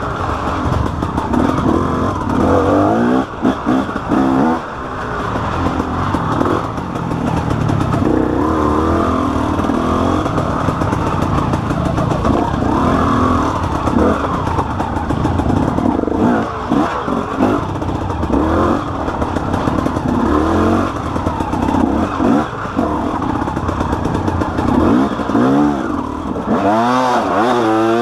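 KTM EXC two-stroke enduro engine, heard from on board, revving up and down over and over as the throttle is opened and closed, with brief drops in loudness between pulls.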